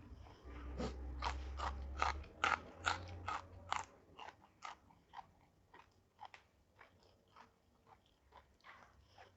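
A person biting and chewing crunchy food: a quick run of loud crunches, about two to three a second, then softer, sparser chewing crunches through the rest.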